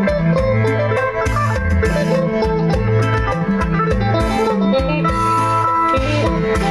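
Phin, the Isan plucked lute, playing a lively melody of quick plucked notes over a low bass line and a steady beat.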